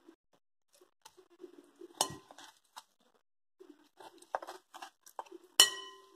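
Large kitchen knife cutting raw pork shoulder into chunks on a wooden cutting board, with soft cutting and scraping sounds. Two sharp metallic clinks, about two seconds in and near the end, ring briefly; the one near the end is the loudest.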